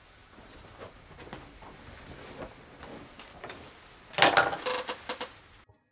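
Soft rustling and scattered clicks, then about four seconds in a burst of clattering knocks as a hand rummages among small hard objects in a small box on a table. It cuts off suddenly near the end.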